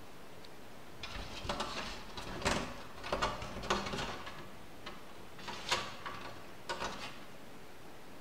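Metal door handle and latch rattling and clicking, with knocks against a wooden door, as a cat jumps up and hangs on the handle trying to open it. The irregular clicks and thumps start about a second in and die out near the end.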